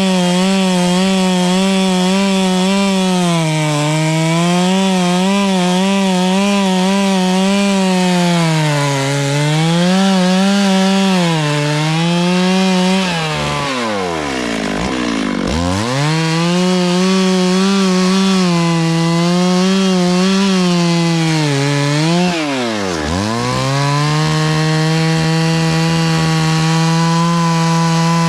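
Two-stroke chainsaw cutting into a tree, its engine pitch sagging and recovering again and again as the chain bites into the wood. Twice the engine drops almost to idle and revs back up: first about halfway through, then briefly about two-thirds in. Near the end it runs steadily at high speed.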